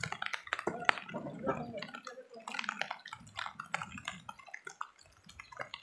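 River water splashing and dripping around a wooden raft ferry, with many irregular small clicks and knocks.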